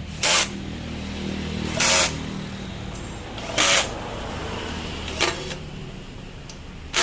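Five short, sharp hisses, about one every second and a half, over a steady low mechanical hum.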